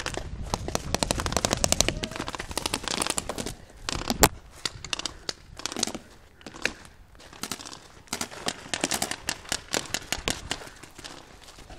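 Paintball markers firing in rapid strings of shots: a run of quick pops, a single sharp crack about four seconds in, then another fast string near the end.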